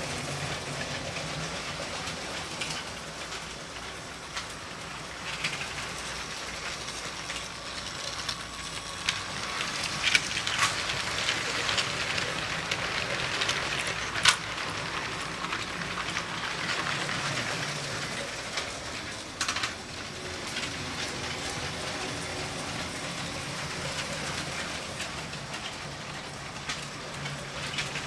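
LEGO train running along its plastic track, a steady mechanical rolling noise that grows louder for several seconds around the middle as it passes close by, with a few sharp clicks.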